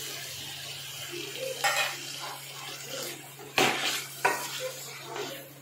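Wooden spatula scraping and knocking against a nonstick kadai as chicken pieces are stirred into yogurt, over a steady sizzle of the chicken frying in a little mustard oil on a high flame. A few louder knocks come in the second half.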